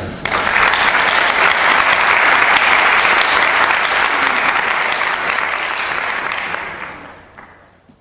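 Audience applauding, steady for several seconds and then fading out near the end.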